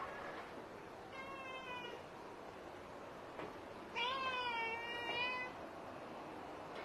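Domestic cat meowing twice: a short meow about a second in, then a longer, louder one around four seconds in that rises at the start and then wavers.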